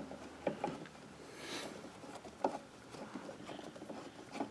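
Faint scattered clicks and light taps from handling around a mini lathe, with a brief hiss about a second and a half in; the lathe is not running.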